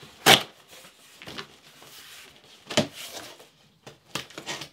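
Cardboard shipping box being opened: the packing tape is cut and the flaps are pulled back, giving a few sharp scrapes and knocks of cardboard, the loudest just after the start and another near three seconds in.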